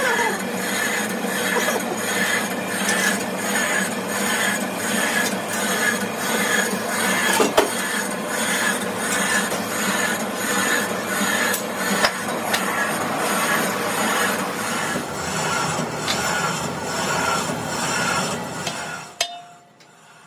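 Metal lathe running with a rough cast-iron truck brake drum spinning in its chuck, a scraping rub pulsing about twice a second as the uneven casting turns against a hand-held bar. There are two sharp clicks midway. The lathe winds down and stops suddenly near the end.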